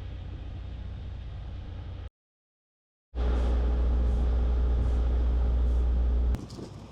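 Semi truck's diesel engine running steadily with a low rumble, in two edited clips split by a second of dead silence; the second clip is louder, and the sound drops abruptly near the end.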